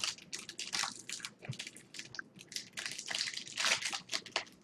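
Foil trading card pack wrappers crinkling and cards rustling as they are handled, a run of quick, irregular crackles.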